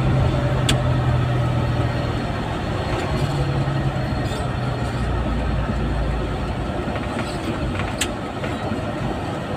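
Engine and road noise of a moving cab-over vehicle, heard from inside the cab: a steady engine hum that fades after about three seconds over constant road rumble. Two brief clicks, about a second in and near the end.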